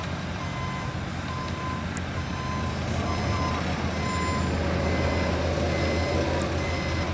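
A diesel truck engine, most likely the ready-mix concrete truck's, running steadily with a deep drone, while a reversing alarm beeps on and off about twice a second through the first few seconds.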